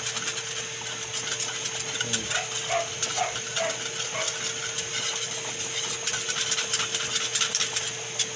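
Wire whisk beating cream of mushroom powder into cold water in a ceramic bowl: a fast, continuous clicking rattle of the wires against the bowl. The powder is being dissolved in cold water so that it does not clump.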